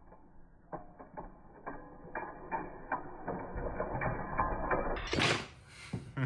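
Balisong (butterfly knife) being flipped: its handles and latch clacking against each other in a run of sharp metallic clicks that come quicker as it goes. About five seconds in, a louder rushing noise.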